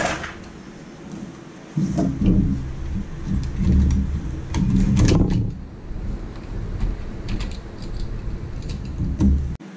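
Handling noise as a stock Intel CPU cooler is worked loose and lifted off a bare motherboard: dull low bumps and rumbling with scattered small clicks and rattles, starting about two seconds in.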